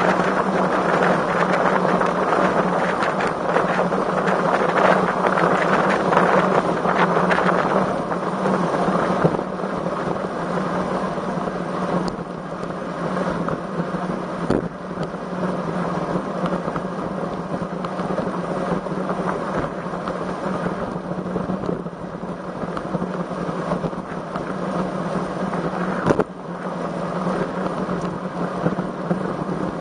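Wind rushing over the microphone of a camera riding along on a road bike on a very windy day, heavier for the first eight seconds, under a steady low hum. A few sharp knocks come through, the loudest about 26 seconds in.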